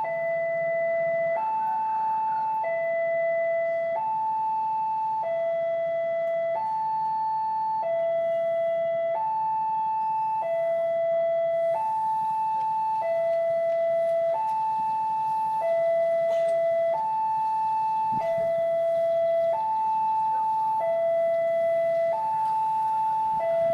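Railway level-crossing warning alarm sounding a steady two-tone signal, a higher and a lower tone alternating evenly, each held a little over a second. It signals that a train is approaching and the crossing barriers are coming down or closed.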